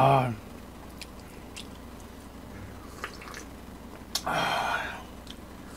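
A man eating: a few small chewing clicks and smacks, then a slurp of kimchi stew broth from a wooden ladle a little after four seconds in.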